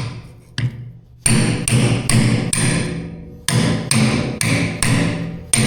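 Hammer blows on a driver block, tapping a new grease seal into the back of a wheel-bearing rotor hub until it sits flush. There are about a dozen sharp metallic strikes, roughly two a second, each with a brief high ring. The first couple are light and the rest are harder.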